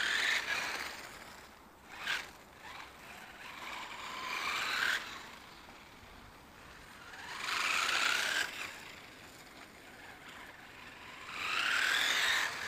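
3D-printed OpenRC F1 radio-controlled car's electric motor and gears whining, with tyre noise on asphalt, as it drives past several times. Each pass swells and fades over a second or two, and the whine rises and falls in pitch as the car speeds up and slows.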